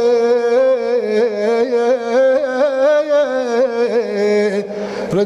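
A male Shia religious chanter (radood) sings one long, ornamented melismatic note, its pitch bending and turning without a break. The note ends near the close as he takes a breath.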